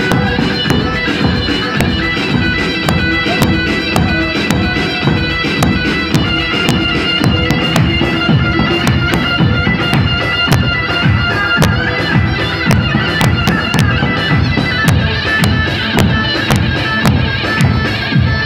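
Live wedding dance music: a davul bass drum beats a steady halay rhythm with sharp stick clicks, under a reedy wind-instrument melody held on sustained notes.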